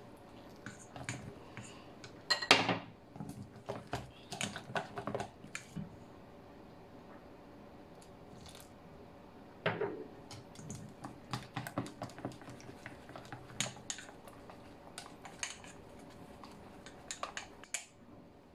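Wooden chopsticks stirring batter in a stainless steel bowl, tapping and clicking irregularly against the metal in short flurries, with a louder knock about two and a half seconds in.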